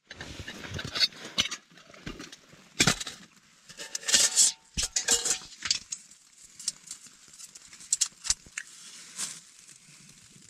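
Metal camping-stove pot and stove parts being handled, with a series of clinks and knocks as the stove is set up and lit with a lighter. A faint, even hiss follows near the end.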